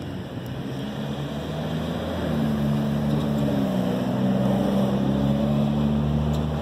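Motor vehicle engine hum from street traffic, getting louder about two seconds in and holding, its pitch dipping slightly midway.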